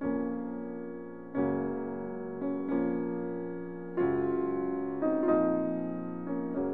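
Background piano music: chords struck about once a second, each fading away before the next.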